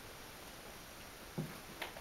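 Quiet room tone, broken by a soft low thud about a second and a half in and a sharp click just before the end.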